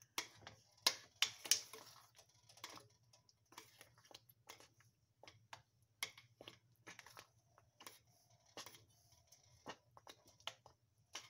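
Metal spoon scraping and clicking against the sides and bottom of a metal pot while stirring thick, cooking grits. The scrapes and clicks come irregularly, loudest in the first couple of seconds.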